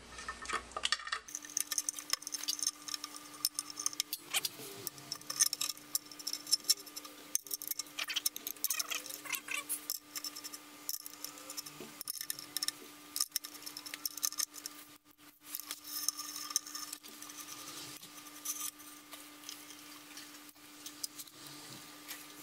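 Irregular small metallic clicks and clinks of bolts and hand tools being handled as a timing cover is bolted onto an LS V8 engine block. A faint steady hum comes in about a second in and runs underneath.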